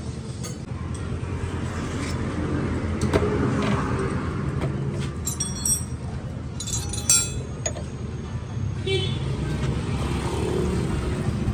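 Steady low rumble of motor vehicles running nearby, with a few light metallic clinks about halfway through, like tools on metal.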